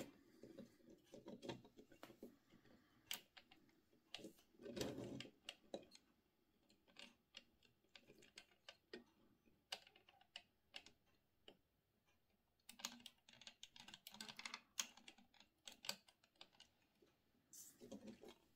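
Faint, irregular clicks and rustling from a 3D-printed plastic model tractor with a front loader being handled and turned in the hands, coming in short clusters with quiet gaps between.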